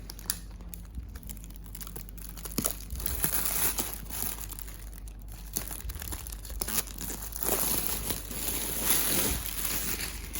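Packaging crinkling and rustling as it is handled and pulled open, with scattered small crackles; quieter at first, busier in the last few seconds.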